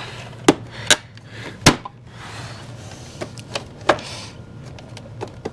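Hard plastic parts of a Dyson DC17 vacuum's cleaner head being handled and pressed into place: a string of sharp clicks and knocks, the loudest a little under two seconds in, with brief scraping between them.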